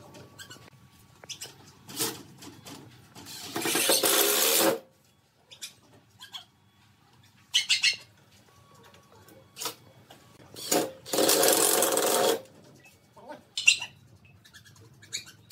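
Cordless drill driving screws into pine pallet wood in two runs of about a second and a half each, one a few seconds in and one past the middle, with short clicks and knocks of handling between them.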